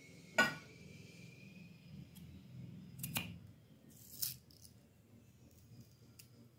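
Amla (Indian gooseberry) being sliced with a knife and the pieces dropping onto a steel plate: a sharp clink about half a second in, another about three seconds in, and a short slicing hiss a little after four seconds.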